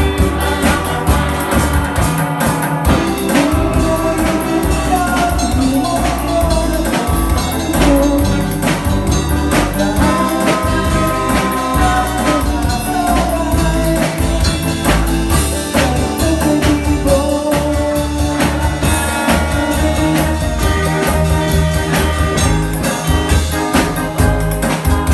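Small live band playing a song: electric guitar, bass guitar and a drum kit keeping a steady beat.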